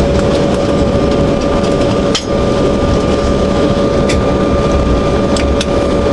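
Cabin noise inside an Embraer 190 rolling on the runway after touchdown: a loud, steady engine hum with a held tone over a low rumble. A few sharp clicks cut through, the loudest about two seconds in.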